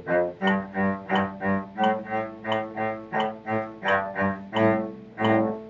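Solo cello played with the bow: short, separate notes at a steady march pace of about three a second, the last one held a little longer near the end.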